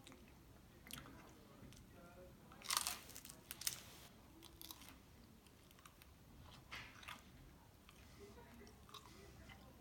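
A person bites into a quesadilla about three seconds in, with a loud crunchy bite, then chews with a few smaller crunches around seven seconds.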